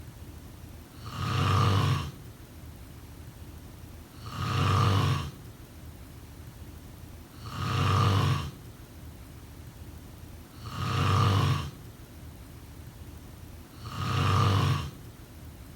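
A sleeping person snoring in a steady rhythm: five snores about three seconds apart, each lasting about a second, with a faint steady hiss between them.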